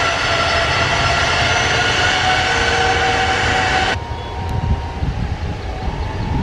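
Jet airliner's engines running loud and steady, a whine with several steady tones over a broad rush. About four seconds in, the high part cuts off suddenly, leaving a quieter, uneven low rumble.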